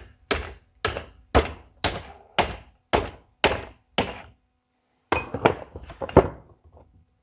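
Repeated hammer blows on stuck parts of a Ford 10-series tractor's fuel injection pump during teardown, about two strikes a second, eight in a row. After a short pause comes a quicker cluster of blows.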